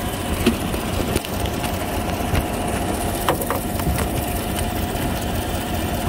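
GM 5.3-litre V8 idling, heard close to the exhaust manifold, with a ticking exhaust leak where the rear manifold bolt has snapped off in the cylinder head.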